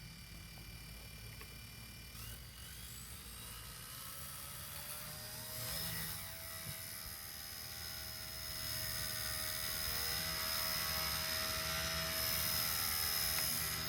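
XK K110S Falcon micro RC helicopter's electric motors spinning up the rotors, the whine rising in pitch over the first several seconds, then holding a steady high whine that grows louder near the end.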